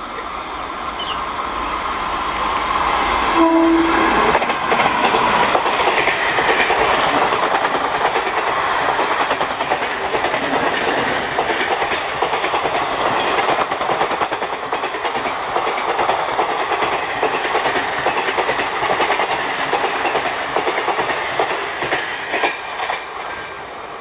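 LHB Duronto Express coaches hauled by a WAP-4 electric locomotive passing at speed: a rush that builds as the train approaches, a short horn note about three and a half seconds in, then a steady din of wheels on rail with rapid clickety-clack over the joints as the coaches go by, easing near the end.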